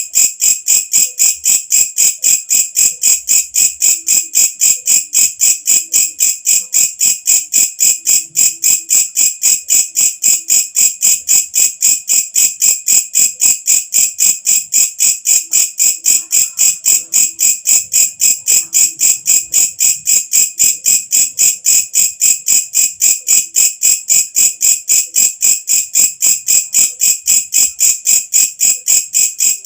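A walang kecek insect singing: a loud, shrill call of evenly repeated pulses, about three a second.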